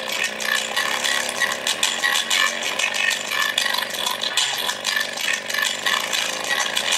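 Bass-boosted music driven loud through a bare JBL Charge 4 speaker driver running free air, its cone making large excursions. The sound comes out thin and distorted, buzzing and rattling in a fast beat, with little deep bass: the driver is pushed past its limits and, by its owner's account, close to dying.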